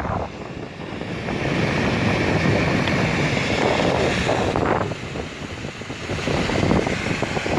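Strong wind buffeting the microphone in gusts, with a steady hiss running underneath.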